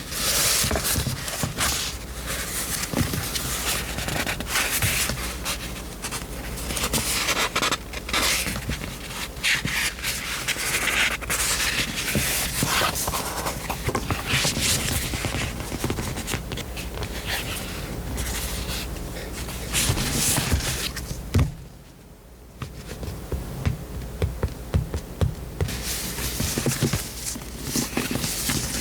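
Paper and old pages being handled and turned, rustling and scraping with light taps, with a brief lull about three quarters of the way through.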